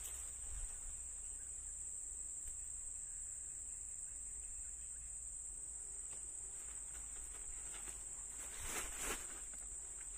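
A steady, high-pitched drone of insects, with a brief rustle or knock of handling about nine seconds in.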